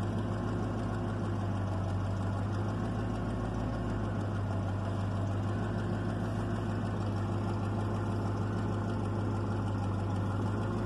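1996 Chevrolet Caprice's V8 engine idling steadily. It keeps running on the fitted passkey bypass module with no key fault, a sign that the PCM is now enabling fuel.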